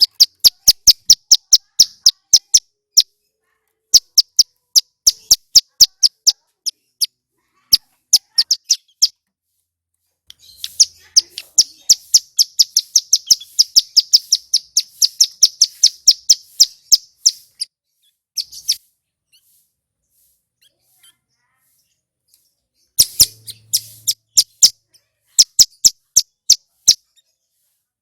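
Ciblek gunung, a mountain prinia, singing: rapid runs of short, high, sharp chip notes in bursts separated by short pauses, with one long run of several seconds near the middle.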